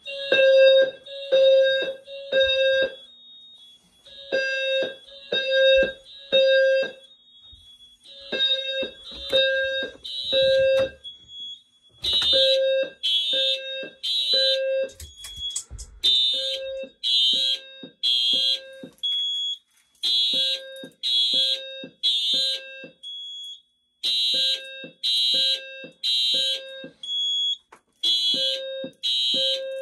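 Simplex 4100ES fire alarm system in alarm, its notification appliances sounding the temporal-three evacuation signal: three short low, buzzy blasts, a pause, repeating about every four seconds. From about twelve seconds in the blasts sound harsher and brighter.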